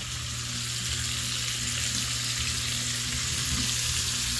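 Mackerel pieces with sliced onion and bell pepper sizzling in a frying pan: a steady frying hiss that swells a little over the first second. A faint low hum runs underneath.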